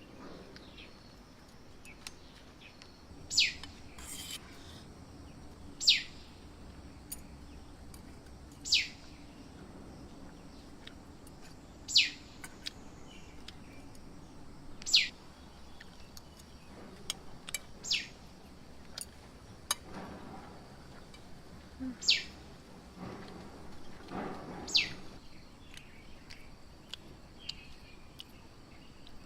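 A bird repeating a single sharp, high call that slides downward in pitch, about once every three seconds.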